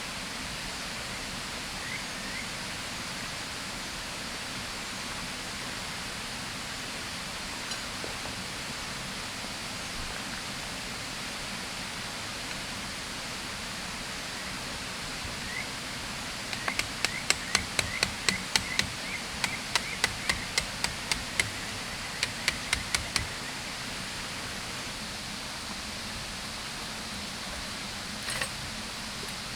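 Steady rush of a river flowing, and about halfway through, a run of some twenty sharp strikes over about six seconds, roughly three a second, typical of a hammer driving tent pegs.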